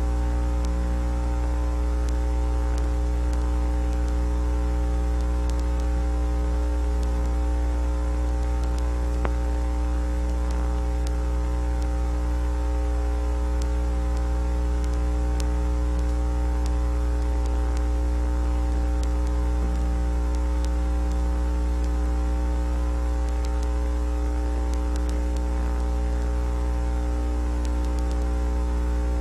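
Steady electrical hum, strongest low down with several fainter steady tones above it, over a constant faint hiss; it does not change throughout.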